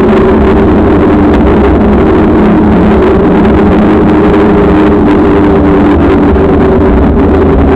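Wind buffeting the microphone of a bicycle-mounted camera during riding: a loud, steady rumble with a low drone running through it.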